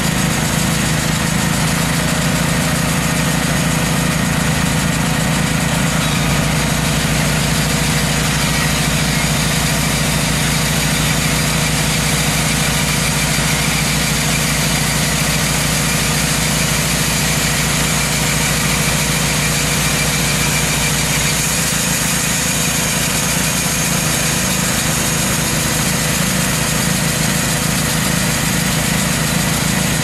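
Engine of a portable hydraulic band sawmill running steadily under load while the band blade saws through a log, with dense sawing noise over the engine's drone.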